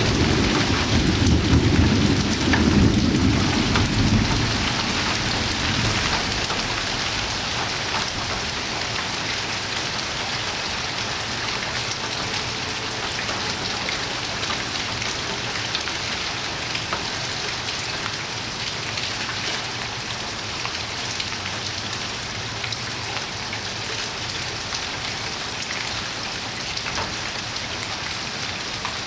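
Heavy thunderstorm rain falling steadily as an even hiss. A low rumble of thunder sounds in the first few seconds and dies away about four seconds in.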